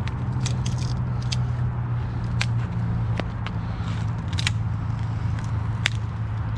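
Dead, dry branches and twigs snapping as they are broken off by hand, a series of short sharp cracks. Under them runs the steady low drone of highway traffic.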